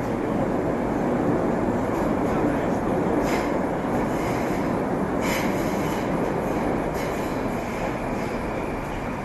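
Moscow metro 81-765/766/767 'Moskva' train running between stations, heard from inside the car: a steady, loud rumble of wheels on rail and running gear, with a few sharp clicks about three, five and seven seconds in.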